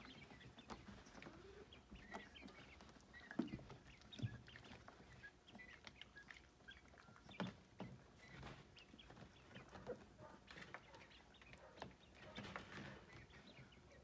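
Young quail giving faint, scattered soft peeps and clucks, with a few light knocks and scuffs in between.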